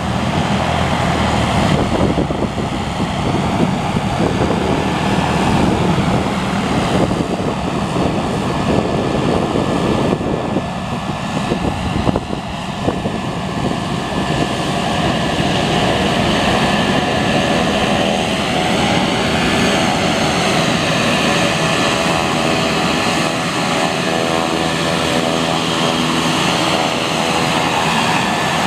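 Beechcraft B200 Super King Air's twin PT6A turboprop engines running at taxi power: a steady propeller drone with a whine of several steady tones that grows stronger about halfway through as the aircraft taxis closer. Gusty wind rumbles on the microphone underneath.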